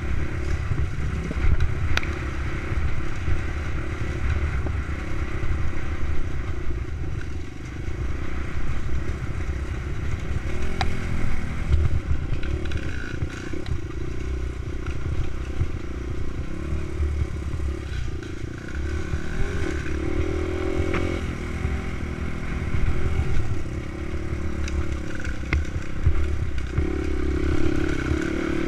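Dirt bike engine running under way on a rough trail, its pitch rising and falling as the throttle is opened and closed, with the bike rattling over bumps and a heavy low rumble on the helmet-mounted microphone.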